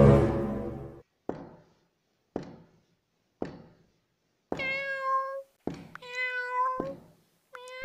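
A cat meowing twice in long, drawn-out meows, with a third beginning at the end. Before them come three soft thunks about a second apart, and a pitched swell that fades out in the first second.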